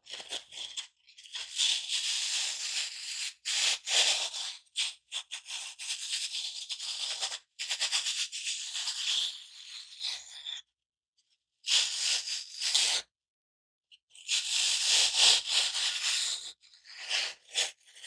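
A dry garden foam block being cut into pieces: a staticky, raspy crunching in irregular strokes and runs, broken by two short pauses past the middle.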